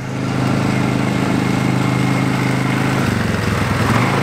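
A 500cc quad bike engine running as the ATV rides up close. It gets louder over the first half second, then runs steadily, and its pitch drops about three seconds in.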